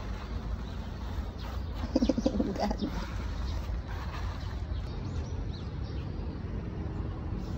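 Birds calling: a short, low, pulsing call about two seconds in and a few faint high chirps, over a steady low rumble.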